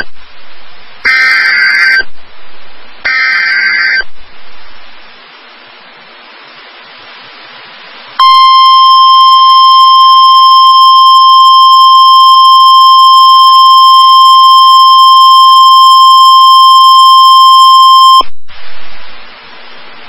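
NOAA Weather Radio SAME header: two raspy bursts of digital data tones, about a second each and two seconds apart, then a few seconds of radio hiss. The steady 1050 Hz warning alarm tone follows for about ten seconds and then cuts off, leaving hiss again. Together they mark the start of a new broadcast warning, here a severe thunderstorm warning.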